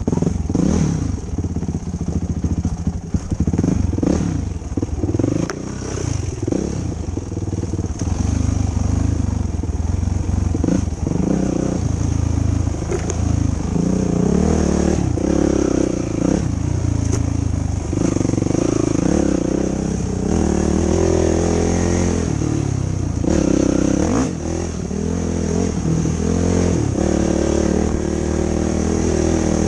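Yamaha YFZ450 ATV's single-cylinder four-stroke engine revving up and down as the quad is ridden on a trail, with scattered knocks and rattles.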